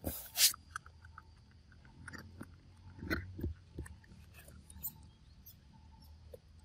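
Macaque chewing and crunching food: irregular clicks and crunches, the loudest just after the start and a cluster about three seconds in.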